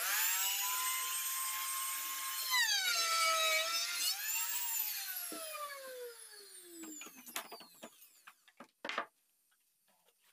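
Handheld electric trim router starting up with a high whine, its pitch dipping for about a second as the bit cuts into the wooden door panel, then switched off and winding down with a steadily falling whine. A few sharp knocks follow near the end.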